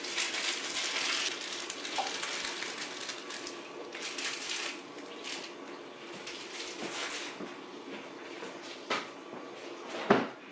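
Small potatoes tipped from a plastic bag into a metal cooking pot, clattering against the pot while the bag crinkles and rustles for the first few seconds. The noise then dies down to a few light knocks, with one sharp knock near the end.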